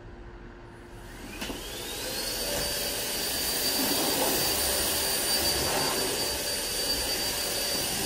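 Hoover ONEPWR Evolve Pet cordless upright vacuum switched on about a second and a half in: the motor spins up with a rising whine over about a second, then runs steadily with a high whine over the rush of suction. It is on the bare-floor setting with the brush roll off, so the motor runs on suction alone.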